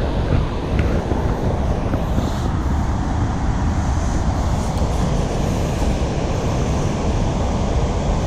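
Steady roar of water rushing through a spillway, loud and heaviest in the low end.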